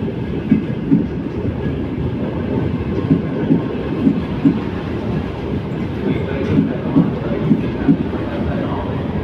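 Frecciarossa high-speed train pulling out of the station, its carriages rolling past with a steady rumble. The wheels clack over the rail joints in quick pairs every second or so.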